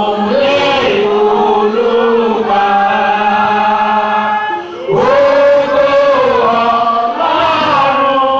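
Men singing a church song into microphones in long, held notes, with other voices joining in. The phrase breaks off briefly a little past the middle and a new one starts.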